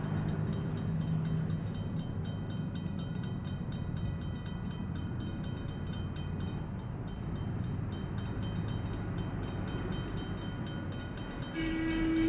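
A train running with a steady low rumble and a faint, fast, even clicking, about four clicks a second. About eleven and a half seconds in, a train horn starts and holds one steady chord.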